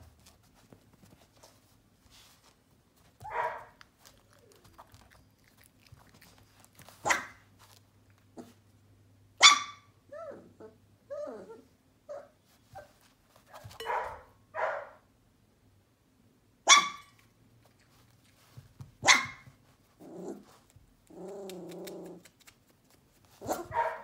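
Young sheepadoodle puppies barking in play: scattered short, sharp yaps a second or a few apart, with small squeaky whimpers around the middle and a longer growl near the end.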